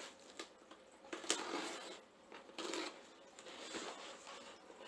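Cardboard box lid being worked loose and lifted off: scraping and rustling of cardboard with a few sharp clicks, the loudest about a second in.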